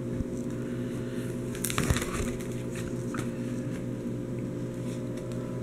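A plastic card-binder page rustling as it is turned, one short burst about two seconds in, over a steady low hum.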